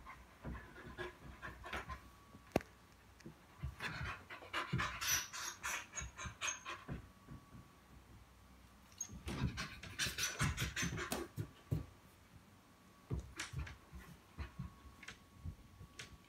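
A dog panting in quick breaths, in two bouts of a few seconds each, with a single sharp click about two and a half seconds in.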